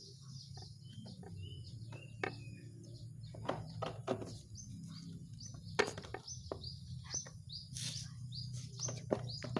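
Small birds chirping in quick, repeated short notes, with scattered sharp clicks and knocks and a steady low hum underneath.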